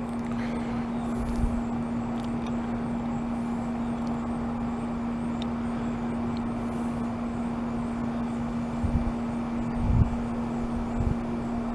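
A steady hum with an even background noise, like a running machine or fan, and a few soft knocks about nine to eleven seconds in.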